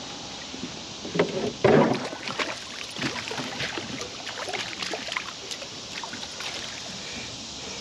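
A hooked rainbow trout splashing at the surface as it is netted beside an aluminium boat, with short spattering splashes. A couple of sharp knocks about a second and a half in are the loudest sounds.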